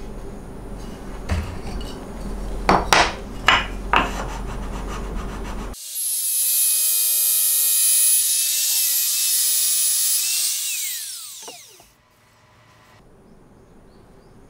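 Wood and jig being handled, with a few sharp knocks. About six seconds in, a Ryobi MTR-42 trim router starts abruptly and runs at high speed routing a groove in the board. It is then switched off, and its high whine falls in pitch as the bit spins down.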